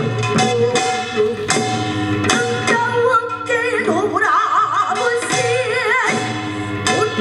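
Korean-style traditional music for a drum dance: drum strikes and sustained instrumental tones, joined from about three seconds in by a woman singing with a wide, wavering vibrato.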